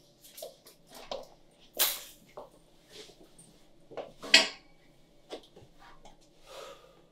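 A string of separate knocks and clatters of household objects being handled and set down, about a dozen over several seconds, the loudest two about two seconds in and again a little past four seconds.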